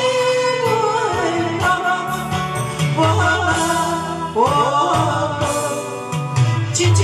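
A woman singing a Taiwanese Hokkien ballad into a microphone over a karaoke backing track, her melody gliding between held notes.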